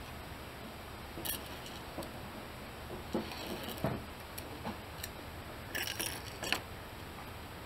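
Victor wooden mouse traps being set down one by one on a wooden workbench: scattered light clicks and taps of wood and small metal parts against the bench, with a few quick ones together around six seconds in.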